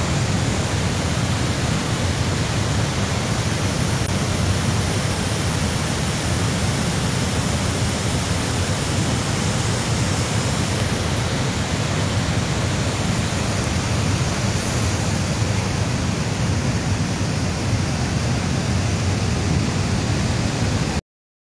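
Steady, unbroken roar of water rushing over the overflowing Sardar Sarovar Dam, cutting off suddenly near the end.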